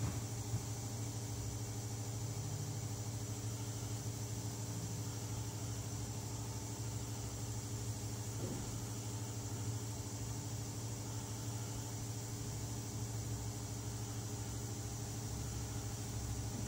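Steady low mechanical hum with a faint high hiss, unchanging throughout.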